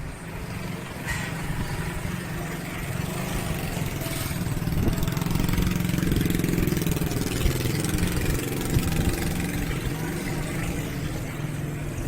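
Motorcycle engine running, growing louder for a few seconds in the middle and then easing off.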